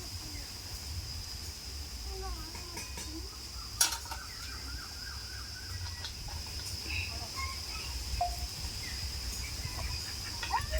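Outdoor ambience: a steady high insect-like drone, a low rumble, faint scattered bird calls, and one sharp click about four seconds in.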